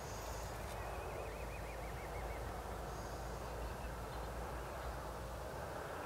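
Steady outdoor background noise: a low rumble under an even hiss, with a faint wavering bird call about a second in.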